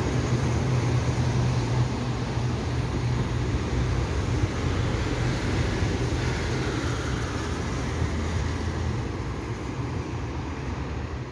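Taiwan Railway EMU800 electric commuter train moving away along the platform. Its running noise and low hum fade gradually as it recedes, with the hum dropping away near the end.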